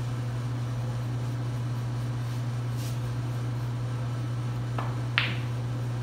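Cue shot on a sinuca table: about five seconds in, a faint click of the cue tip striking the cue ball, then a moment later a sharper, louder click as the cue ball hits an object ball. A steady low electrical or fan hum runs underneath.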